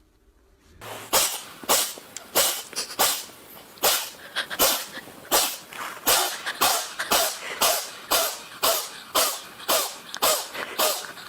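A cat sneezing over and over in a rapid fit, short sharp sneezes about two a second, starting about a second in.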